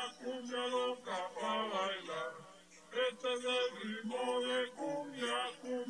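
A man's voice chanting in a sing-song, half-sung way with held notes and no beat under it: a sonidero voice drop.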